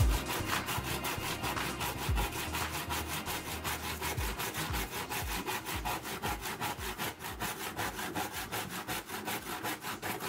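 Hand saw with a blade made from a recycled band saw blade cutting across a thin wooden board, rasping through the wood in a steady rhythm of quick back-and-forth strokes.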